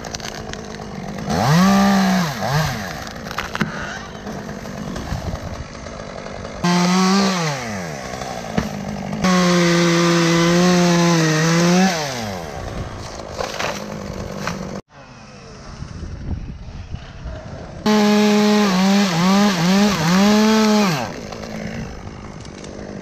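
Chainsaw cutting a large red oak limb, revving up hard in several bursts of one to three seconds and dropping back to a lower running between them.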